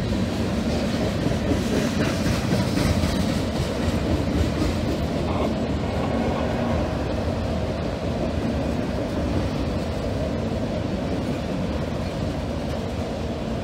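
Freight train of covered hopper and autorack cars rolling steadily past: a continuous rumble and rattle of steel wheels on the rails.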